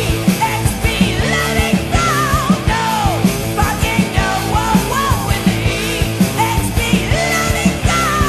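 Rock music in a punk style, with a steady drum beat and a wavering vocal or lead line over it.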